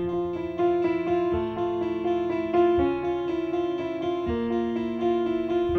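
Background music: a slow melody of sustained notes over low notes that change every second or two.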